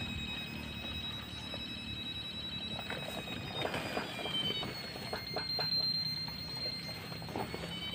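Handheld treasure locator's electronic unit sounding a steady high tone that steps slightly higher in pitch about halfway through. A few soft knocks and clicks come in the middle.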